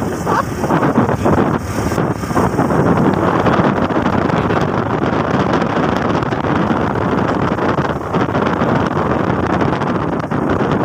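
Wind buffeting the microphone: a steady, loud rush of noise.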